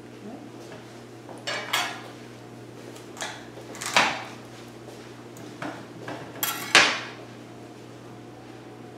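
Kitchen utensils clattering: a knife and spoon knocking and clinking against a cutting board, bowl and plate in a few short bursts, the loudest about four seconds in and near seven seconds.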